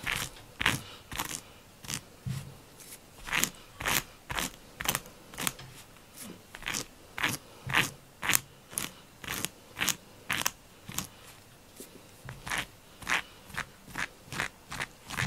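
Small plastic tool raked in short strokes across a rubber pet-grooming glove, scraping off the shed cat hair caught in its nubs. About two quick scrapes a second, with a brief pause about three-quarters of the way through.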